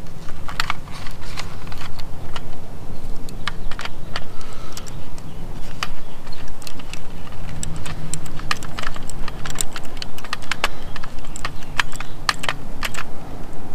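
Hand tools clicking and snapping at close range as wire strippers and a small driver work the wire terminals of a Tesla Wall Connector: irregular sharp clicks, several a second at times, over a steady low hum.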